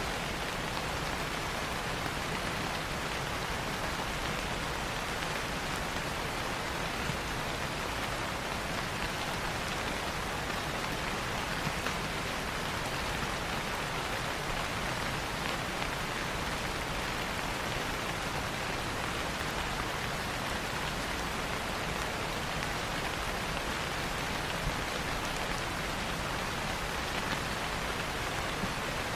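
Steady rain falling, a constant even hiss, with a few faint clicks now and then.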